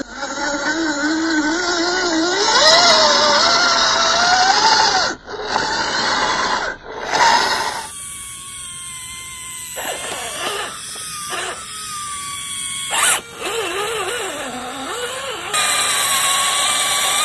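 Electric motors of an MN86K RC crawler whining under load as it crawls through mud on its winch line: a 540 motor driving metal gears. The pitch rises and falls at first, then settles into a steadier, higher whine from about eight seconds in, broken by a few sharp cuts.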